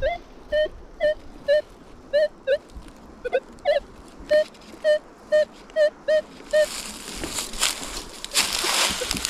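An animal calling: short chirping notes repeated steadily about twice a second, each with a slight bend in pitch. Rustling noise comes in over the calls in the last few seconds.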